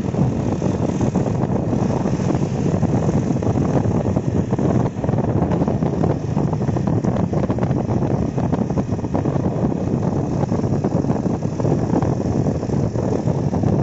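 Wind buffeting the microphone over the engine and tyre noise of motorcycles riding along the road.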